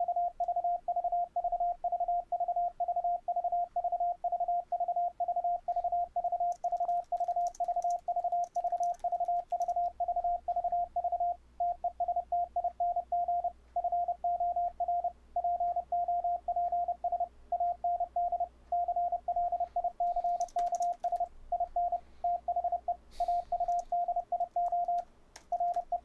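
Machine-sent Morse code from fldigi: a single steady tone of about 700 Hz keyed rapidly into dots and dashes, returning over a Mumble internet voice loopback. A couple of pops come through in the return audio, a sign that the 10 ms audio-per-packet setting is too short for this setup.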